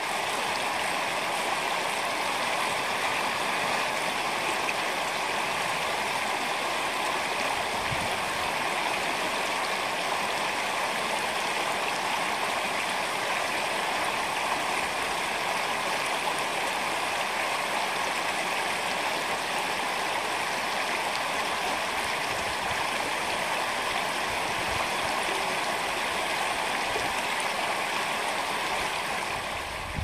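Steady rushing of a flowing stream, even and unbroken.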